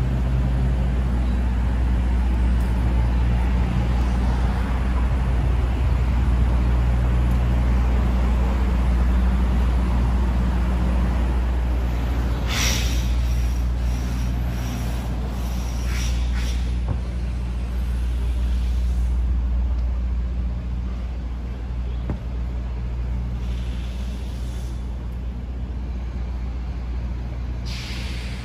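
City street traffic: a steady low engine drone with road noise from passing cars, and a few short hisses about halfway through and again near the end.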